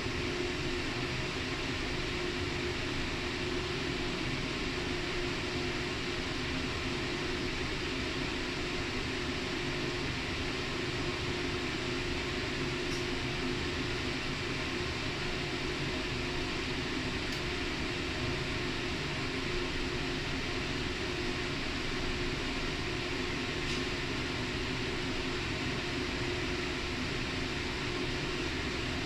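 Steady room noise: a constant hiss with a low machine hum beneath it, with no change in level.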